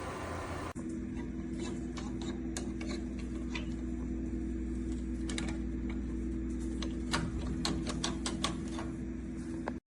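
A steady low electrical hum with irregular light ticks and clicks over it, which come more often near the end. For the first moment there is a broad hiss instead, and the sound stops suddenly at the end.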